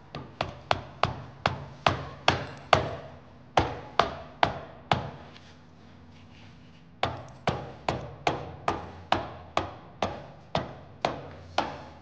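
Rubber mallet striking the top of a steel kingpin to drive it down through a hot rod I-beam axle and spindle, where it won't simply drop in. Two runs of about a dozen sharp blows, roughly three a second, with a pause of about two seconds between them.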